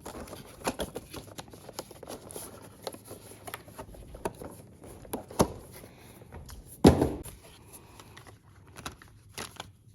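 Scattered clicks and light knocks of packaged phone accessories being handled and sorted. There is a sharper knock about five and a half seconds in and a louder one about seven seconds in.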